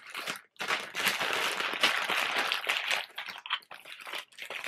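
Clear plastic packaging bag crinkling and rustling as a pair of socks is pulled out of it and handled: dense crinkling for about two and a half seconds, then scattered crackles.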